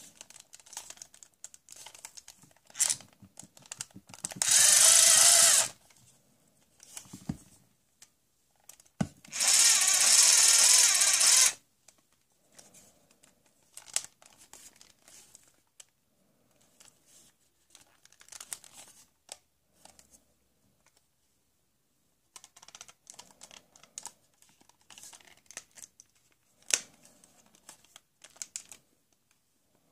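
Toy battery-operated power screwdriver running in two bursts of about a second and a half and two seconds, with plastic clicks and rattling of handling before, between and after.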